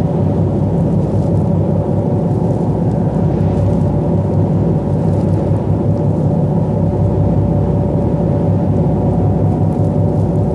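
Steady low drone of a car ferry's engines under way, with the rush of the bow wave breaking along the hull mixed in.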